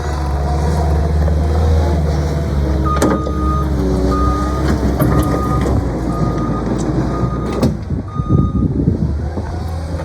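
Cat 259D skid steer's diesel engine running and revving as it works, with its backup alarm beeping six times at an even pace while it reverses. Sharp knocks come at the start and end of the beeping, and rattling clatter follows.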